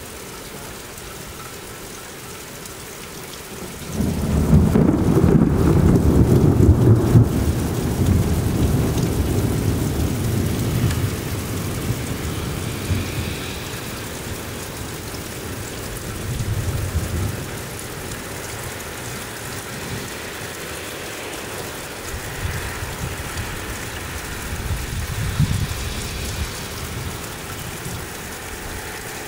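Steady heavy rain, with a loud clap of thunder breaking about four seconds in and rumbling on for several seconds as it fades. Two fainter rolls of thunder come later.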